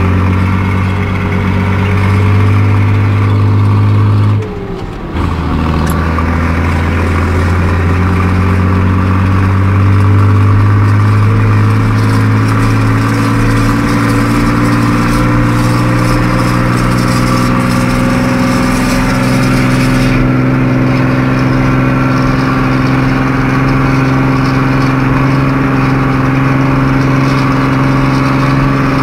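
Fiat 1180 DTH tractor's six-cylinder diesel engine running steadily under load while pushing a snow plow, heard from inside the cab. About four and a half seconds in, its pitch drops sharply and the sound dips for under a second before picking up again. Over the middle of the stretch the revs climb slowly, then hold.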